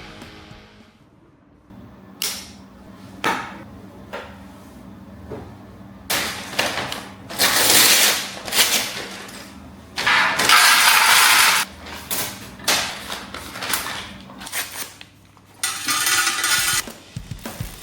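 Cardboard and plastic packaging being handled and opened: scattered clicks and knocks, with two longer rustling bursts about six and ten seconds in.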